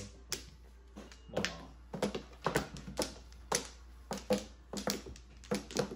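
Mahjong tiles clacking as they are drawn and discarded onto the table: about a dozen sharp knocks at irregular intervals.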